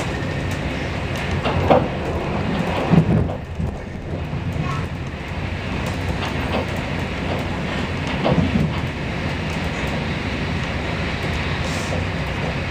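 Passenger train running, heard from inside the carriage: a steady rumble of wheels on the rails, with a few short louder knocks, the loudest about three seconds in.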